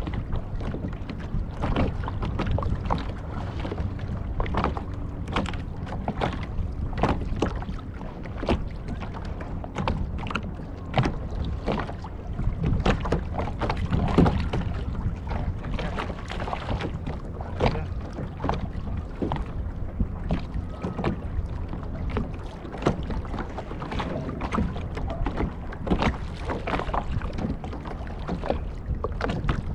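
Sounds of a fishing kayak on the water: a steady low wash of water and wind, with many short, irregular knocks and splashes against the hull.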